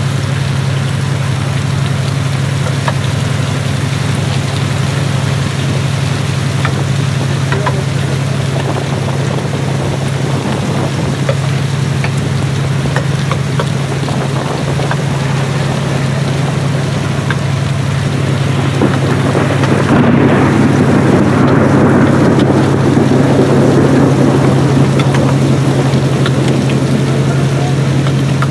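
Fishing trawler's engine running with a steady low hum under a constant hiss of rain. A louder rushing noise swells in about two-thirds of the way through and eases off near the end.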